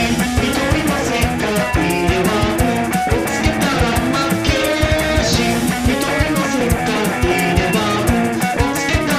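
Rock band music: guitar playing over bass, with a drum kit keeping a steady, busy beat.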